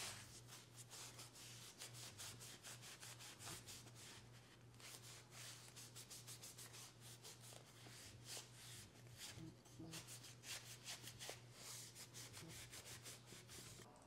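Cloth rubbing mineral oil into an olive-wood spoon: a long run of faint, quick brushing strokes with a couple of short pauses.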